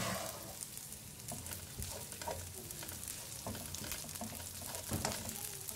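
Sliced onions and garlic sizzling in hot oil in a nonstick wok, a steady crackling hiss, stirred with a spatula that scrapes across the pan.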